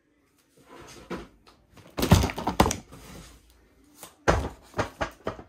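Cardboard parcels being handled and set down: a run of thuds and knocks, loudest about two seconds in and again in a quick cluster near the end.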